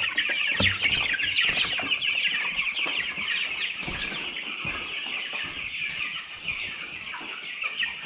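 A crowd of broiler chicks peeping continuously in a dense chorus of short, quick chirps, louder for the first few seconds and then a little quieter. A few brief knocks from handling sound through it.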